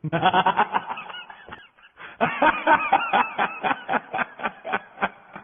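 A person laughing in rapid bursts, about four a second, breaking off briefly about two seconds in.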